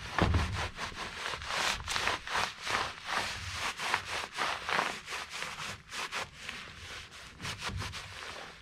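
Quick, irregular rubbing strokes, several a second, of scrubbing a furnace's grimy surface by hand.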